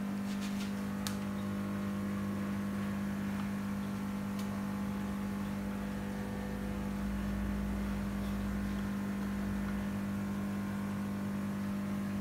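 A steady machine hum, with a few light clicks in the first second.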